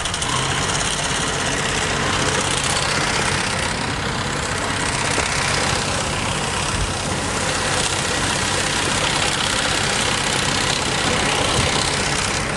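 Engine of a Birkenheger Spider ditch-maintenance machine running steadily as it works along a drainage ditch, under a steady broad hiss.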